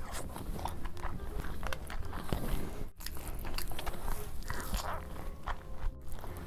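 Close-miked eating: biting and chewing food with crunching and irregular wet mouth clicks, broken by two brief gaps.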